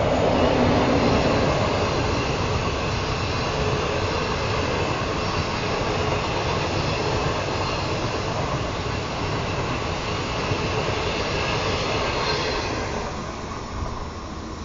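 Intercity through train of 25Z coaches, hauled by an SS8 electric locomotive, rolling past: a steady rumble and rush of steel wheels on rail. It is loudest at the start and fades about a second before the end as the last coach goes by.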